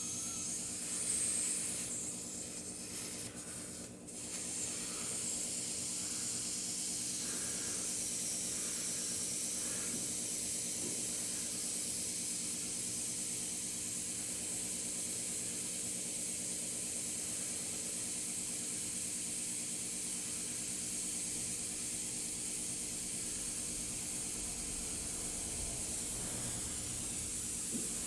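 Trapped air hissing steadily out of the opened bleeder (breather) valve on a hot-water shop heater as the system is bled. The heater was cold because it was full of air. A steady low hum runs underneath, and the hiss dips briefly about three to four seconds in.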